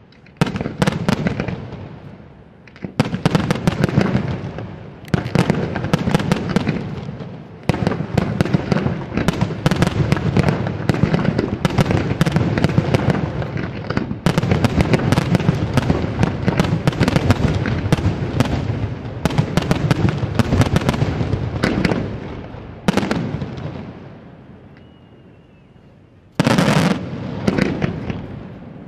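Senatore Fireworks aerial shells bursting in rapid volleys, a dense run of bangs and crackle in several waves. The volleys die away about three-quarters of the way through, then another loud volley breaks out near the end.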